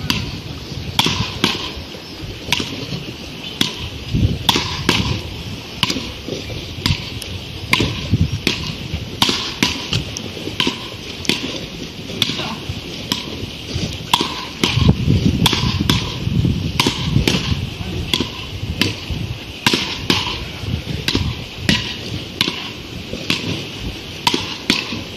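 Beach paddle rackets hitting a small ball in rallies: sharp, hollow pocks, irregularly spaced at roughly one to two a second, from two games going at once.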